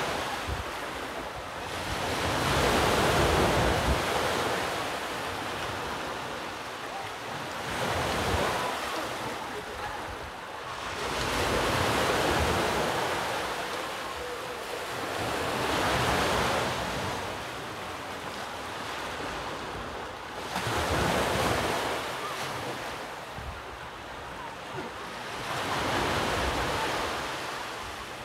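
Ocean surf on the shore, washing in and ebbing in slow swells every four to five seconds, with wind buffeting the microphone.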